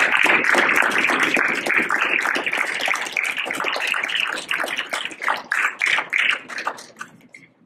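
Audience applause that thins to scattered claps and dies away about seven seconds in.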